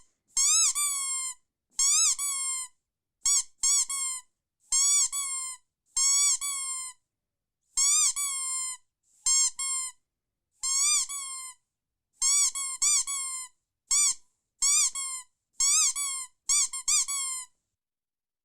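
A squeaky dog toy squeezed again and again: about twenty short squeals, each rising then falling in pitch, some in quick pairs, with brief silent gaps between.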